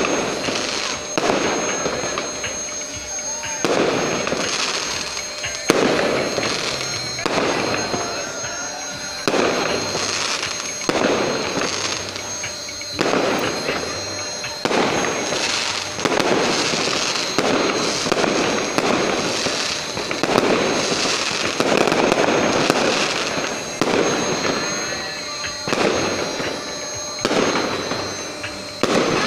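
Fireworks display: aerial shells bursting one after another, about one bang every one to two seconds, each bang trailing off before the next.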